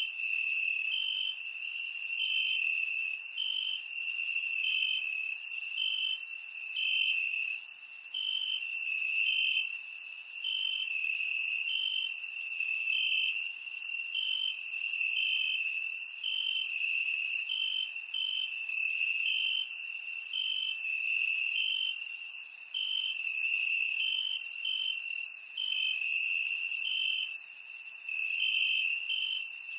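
Crickets chirping: a steady high trill with shorter, slightly higher chirps from another cricket repeating about once a second.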